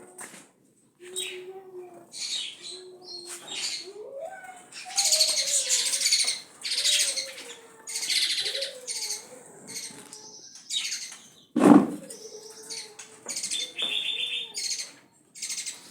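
Songbirds chirping and singing in rapid, repeated high bursts, with a lower wavering call underneath. A single sharp knock about 12 seconds in is the loudest sound.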